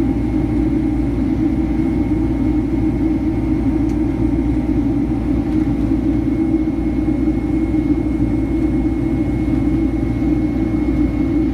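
Steady cabin roar of a Boeing 767-300ER airliner in flight after takeoff, heard from inside the cabin: engine noise and airflow over the fuselage, heavy in the low end, with a faint steady high whine.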